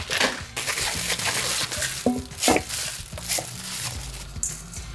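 Food sizzling in a hot pan while being stirred, with the scrape and click of a utensil against the pan.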